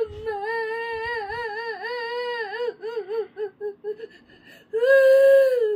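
Young girl crying: a long wavering cry that breaks into short sobs, then a louder drawn-out wail near the end.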